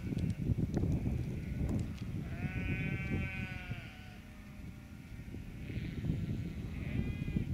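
A sheep bleats once, a long call of about a second and a half that rises and falls, and near the end a shorter, higher bleat follows, over low rumbling background noise.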